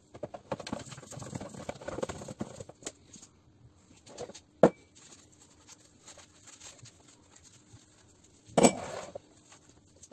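Metal tools and compressor parts being handled on a workbench: a run of small rattles and clinks, then a single sharp metallic click that rings briefly, and a louder knock near the end.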